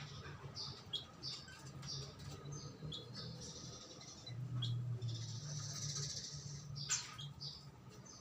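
A songbird chirping: repeated short high notes, and a longer sustained trill in the middle, over a low steady hum.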